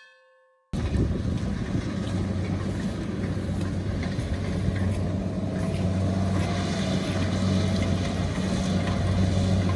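A Kubota rice combine harvester's diesel engine running steadily, a deep continuous hum with a faint wavering whine, cutting in abruptly about a second in after a short fading tone.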